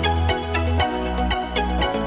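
Electronic background music with a steady beat, a repeating bass line and layered synth tones.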